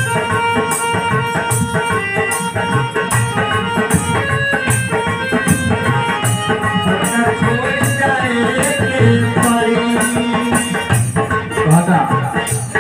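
Instrumental interlude of a Bhojpuri devotional bhajan: harmonium playing the melody in held reedy tones over a dholak rhythm, with a crisp rattling beat about twice a second.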